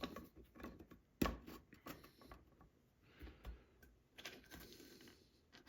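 Small rocks clicking and tapping as they are shifted, faint and scattered, with one louder knock about a second in.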